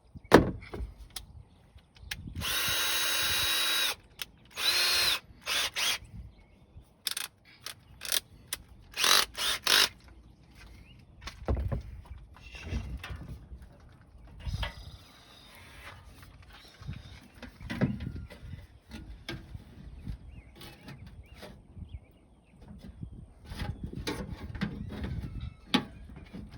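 Power drill driving screws. There is one steady run of about a second and a half, a shorter run, then several quick bursts, followed by quieter clicks and handling noise.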